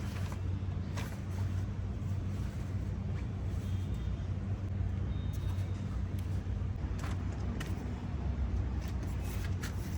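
A steady low motor hum, with a few faint clicks on top.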